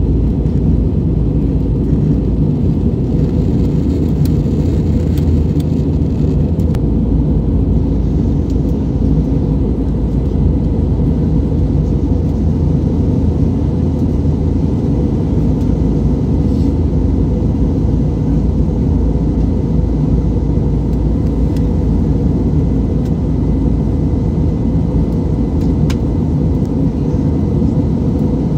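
Airbus A320neo cabin noise in flight: a steady low rumble of engines and airflow heard from a seat over the wing.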